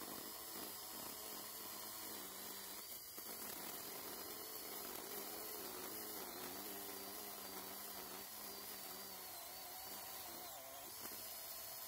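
JPOWTECH 21-volt cordless mini chainsaw running, its electric motor and chain making a steady whine that wavers up and down in pitch as it cuts through brush.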